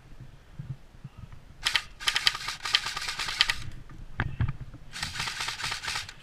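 Airsoft electric gun (AEG) firing rapid full-auto bursts of clicking shots: a short burst, a longer one of over a second, and another near the end, with a low thump between them.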